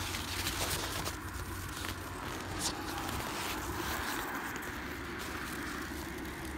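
Footsteps crunching in packed snow, with a few sharp crunches in the first half, over a steady low rumble.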